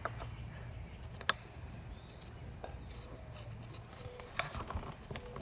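Wax being rubbed onto the top surface of a scooter ramp: quiet rubbing and scraping, with two sharp taps about a second in and again near the end.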